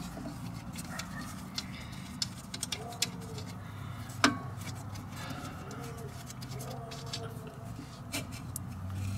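Scattered metallic clicks and taps from hand tools working on a rear drum brake assembly, one sharper knock about four seconds in. Faint short low calls like a dove's and a steady low hum sit in the background.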